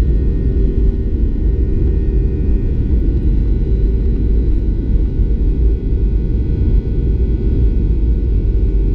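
Boeing 737-800 rolling on the runway, heard inside the cabin by the wing: a loud, steady deep rumble from its CFM56-7B engines and wheels, with faint steady engine tones above it.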